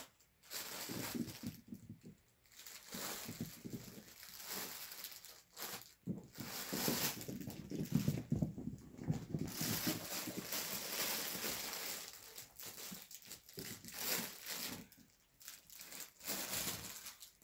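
A Yorkie puppy and a Pomchi playing rough, with scuffling and rustling, crinkling fabric from a pet play tunnel coming in uneven bursts.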